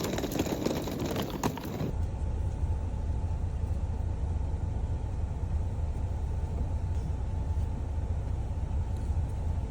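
Steady low vehicle rumble. For about the first two seconds it sits under busier noise with small clicks, which cuts off abruptly.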